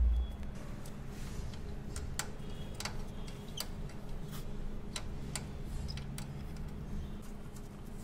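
Scattered light clicks and ticks, about a dozen at uneven intervals, from hands handling a new toothed carriage belt at the carriage's belt clamp on a flex printing machine, over a steady low hum.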